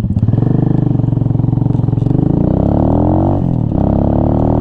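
Venom Ghost Chopper 250 motorcycle engine pulling along the road: its pitch holds, then rises as the bike gathers speed. About three and a half seconds in, the revs drop briefly, as at a gear change, then climb again.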